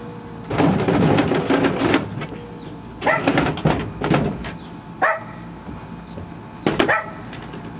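A dog barking in repeated bursts, a loud cluster about half a second in followed by single barks every second or so.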